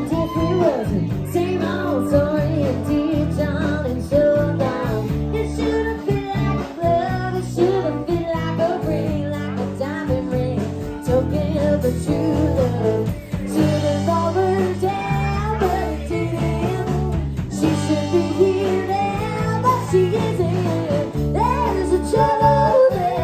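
Live country band in a bar: a woman singing lead over acoustic guitar and a steady bass line.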